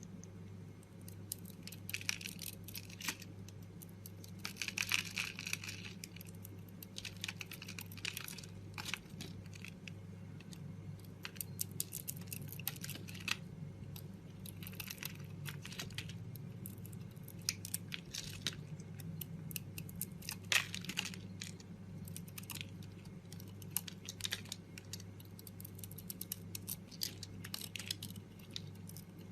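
A blade cutting into dry soap: clusters of crisp crackling crunches and small clicks, with a steady low hum underneath.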